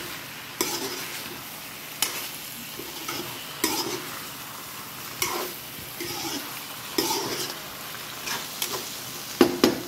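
Chicken, onions and chopped taro leaves sizzling in an oily pan while a metal spatula scrapes and turns them, with a scraping stroke about every second and a half.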